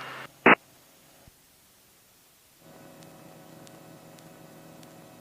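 Aircraft radio and intercom audio: a brief burst of radio squelch about half a second in, then near quiet, then a faint steady electrical hum of several tones setting in just before the three-second mark as the radio is switched to the new frequency.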